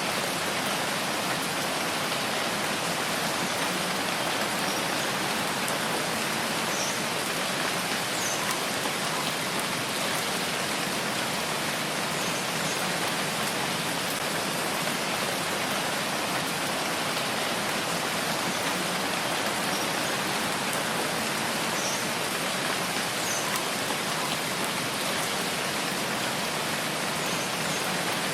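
Steady rain falling: a dense, even hiss of drops that doesn't change.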